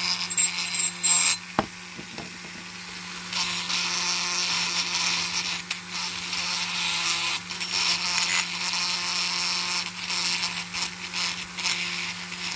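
Small pen-style rotary tool running with a steady hum while a small wire brush bit scrubs into the seams of a stripped diecast metal truck cab and chassis. The harsh scratching comes and goes as the brush is pressed in and moved about.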